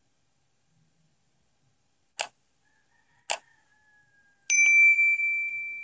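Two mouse-click sound effects about a second apart, then a bright notification-bell ding that starts suddenly and rings on, slowly fading.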